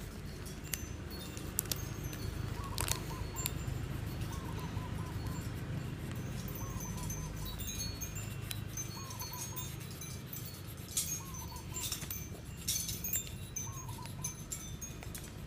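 Birds calling, a short wavering call repeated every second or two with high chirps between, over a steady low hum. Occasional light taps and scratches of colouring on paper.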